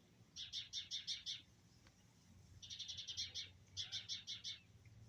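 Birds giving alarm calls at a cat: rapid runs of short, high chattering notes, about seven or eight a second, in three bouts separated by brief pauses.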